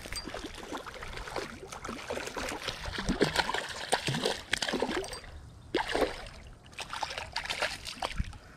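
Irregular splashing and sloshing of water from a hooked white bass fighting at the surface as it is reeled in.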